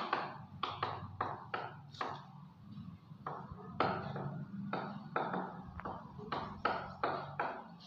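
Chalk writing on a blackboard: a quick, irregular series of short taps and scratches as each stroke lands, over a steady low hum.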